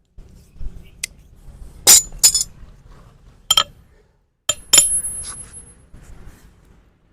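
Hoof-trimming tools clinking and knocking in a series of about six sharp metallic strikes. One strike, a little before the five-second mark, rings on briefly.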